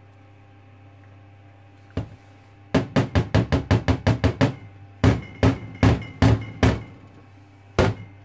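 A small plastic mold filled with thick hot-process soap is knocked down repeatedly on a stainless-steel counter to settle the soap. There is one knock, then a quick run of about ten knocks, five slower ones, and a last knock near the end.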